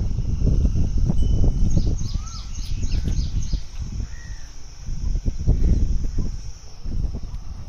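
Small birds chirping in quick runs of short, high repeated notes, with an occasional short rising-and-falling call, over a loud, uneven low rumble.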